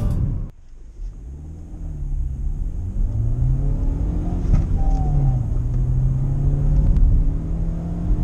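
Hyundai Bayon's 1.2 MPi four-cylinder petrol engine accelerating, heard from inside the cabin. The engine note climbs, drops, climbs and drops again as the car shifts up, then holds and slowly rises as the car gathers speed. Music cuts off about half a second in.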